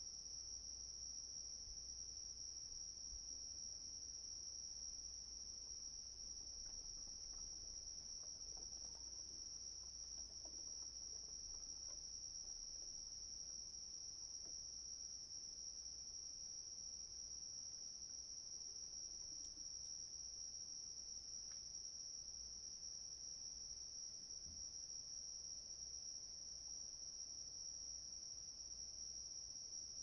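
Crickets chirping as a steady, unbroken high-pitched trill.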